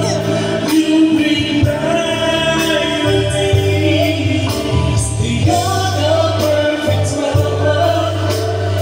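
A man and a woman singing a duet into microphones over backing music with a steady beat and bass, amplified through a PA system.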